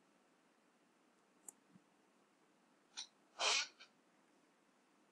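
Near silence broken by a few faint clicks, typical of a computer mouse, and one short breathy burst about three and a half seconds in, the loudest sound.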